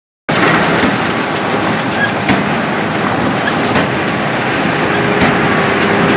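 Tractor and Krone BigPack large square baler at work: a loud, dense mechanical clatter with scattered sharp clicks, starting abruptly. A faint steady hum joins about five seconds in.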